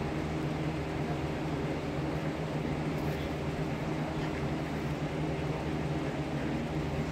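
Electric fan running steadily: a low hum made of several steady tones under an even hiss.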